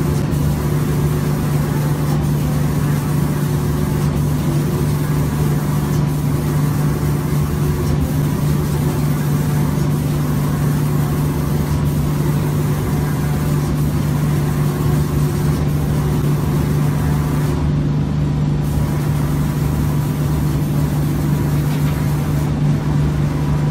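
Automatic five-axis door spraying machine at work in its spray booth: a steady, loud mechanical hum with a low drone that holds unchanged while the spray guns make passes over a door panel.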